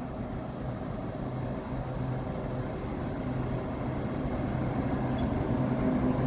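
Southeastern Class 395 Javelin high-speed electric train running past along the platform, a steady low hum over a rolling rumble, growing louder as the carriages come by.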